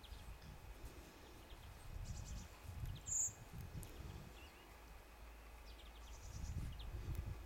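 Faint, soft low rustling and shuffling as two chow chows roll and nose about in deep snow, with a short high squeak about three seconds in.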